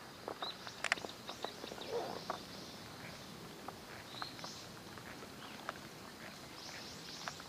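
Scattered light clicks and ticks of fishing tackle at irregular spacing while a topwater lure is worked back, with a few short high bird chirps.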